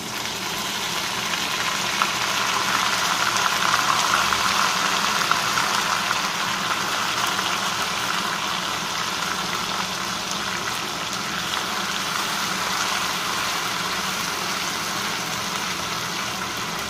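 Garlic, ginger and red chilli paste sizzling as it fries in hot mustard oil in a steel kadai, a steady hiss that is loudest a few seconds in and eases slightly after.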